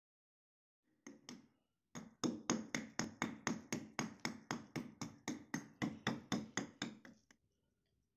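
Hand hammer striking rock salt in a quick, even rhythm of about three and a half blows a second, chipping a Himalayan salt lump into a natural-shape lamp. Two separate knocks come first, and the strikes stop a little after seven seconds in.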